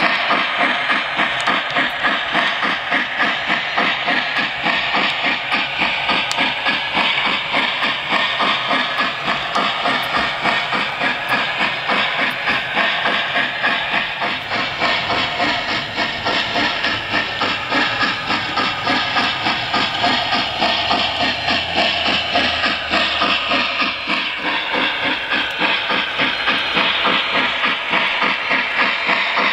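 Lionel Pere Marquette Berkshire O gauge model steam locomotive running, its onboard RailSounds playing a steady, rhythmic steam chuff with hiss in time with the drivers.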